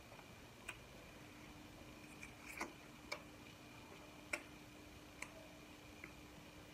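Near silence broken by about six faint, sharp clicks of someone eating, the loudest about four seconds in, over a faint steady hum that starts about a second in.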